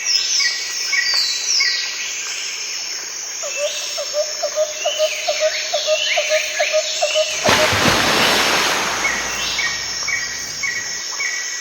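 Birds chirping and calling, with many short repeated notes and quick downward sweeps, and a run of lower notes about three a second in the middle. About seven and a half seconds in, a brief rush of noise covers them for a second or so.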